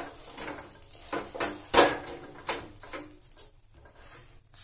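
A wooden spatula stirring and scraping thick, nearly dry carrot halwa against a steel kadhai. It makes a run of scraping strokes, the loudest a little under two seconds in, and they grow fainter after about three seconds.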